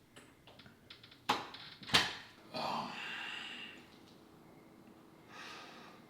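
Two sharp knocks or thumps about two-thirds of a second apart, followed by a long breathy sigh and later a fainter breath.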